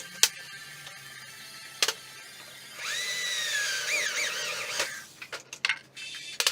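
Power drill whining: it spins up about three seconds in, runs for about two seconds with its pitch wavering as if under load, then stops. Several sharp clicks and knocks come before and after it.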